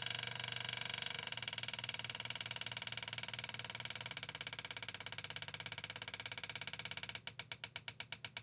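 Electronic boost control solenoid driven by an Arduino, buzzing rapidly as it is pulsed. About seven seconds in it drops to a slower, distinct clicking of about ten a second: the lower switching frequency set for first gear, because at low duty cycles the solenoid cannot switch fast enough.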